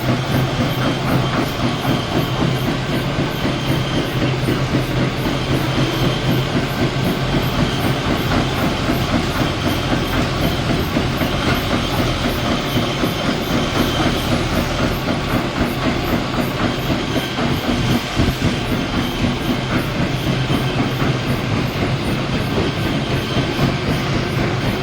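Biomass briquette machine running steadily under a constant low hum, with a regular clatter of about three ticks a second.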